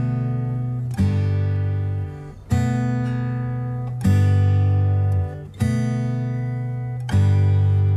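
Background music: acoustic guitar chords strummed one at a time, about one every second and a half, each left to ring out.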